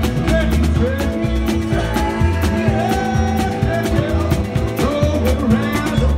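Live band playing a rock-and-roll tune: guitars and drum kit with a steady beat, and a lead line with sliding, bending notes over it.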